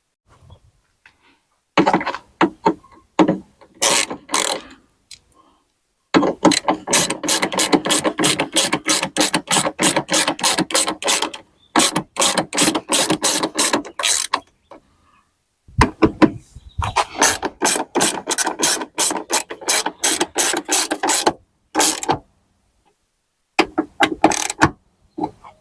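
Hand ratchet clicking in long, even runs of about five clicks a second, with short pauses between runs, as door-handle fasteners are worked on.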